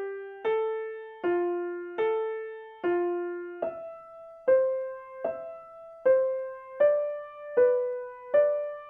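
Background music: a slow piano-like melody of single struck notes, a little more than one a second, each ringing and fading before the next.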